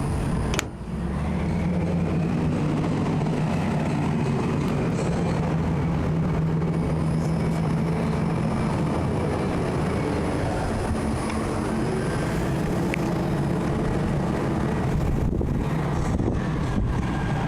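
Steady low mechanical drone, engine-like, with a short dip and click just under a second in.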